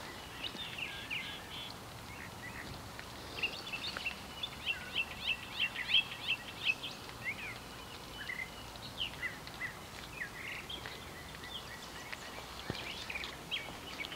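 Small birds chirping, with a busy run of short high chirps in the middle and a few more near the end, over faint steady outdoor noise.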